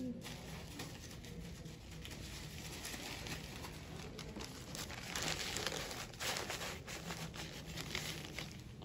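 Paper drape rustling and crinkling as gloved hands lay it over the forearm, loudest a little past halfway.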